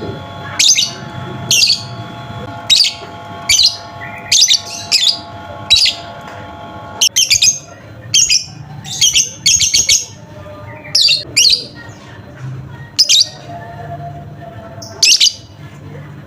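Lovebird calling: short, sharp, shrill chirps repeated about once a second, some coming in quick doubles and triplets.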